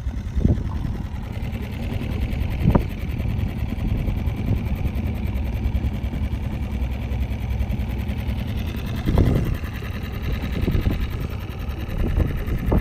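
Small outboard motor running steadily, driving the boat along at low speed, with a few short thumps about half a second, three seconds and nine seconds in.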